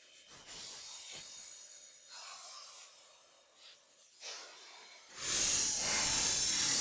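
Synthesized sound effect of alien energy beings communicating: a few hissing swells that rise and fade, then about five seconds in a much louder, steady hiss cuts in and holds.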